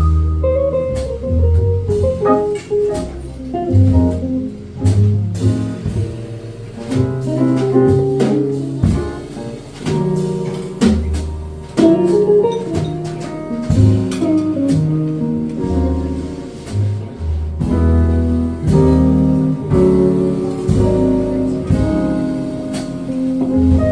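Live jazz quartet playing, with electric guitar to the fore over bass, piano and drums.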